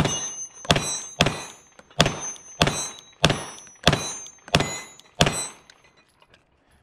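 Glock 19X 9mm pistol firing a string of single shots, each crack followed by a short echo, spaced about half a second to a second apart. The shots stop a little past five seconds in, when the last round of the magazine is fired and the slide locks back.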